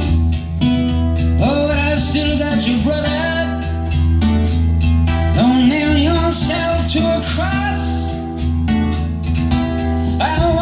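A song with guitar and singing over a strong, steady bass line, played back through an Onkyo SC 40 speaker pair driven by a Philips MCD 909 system.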